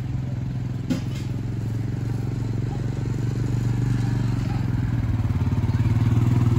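ATV (four-wheeler) engine running at low speed, getting louder as it approaches over the last couple of seconds. A single short knock about a second in.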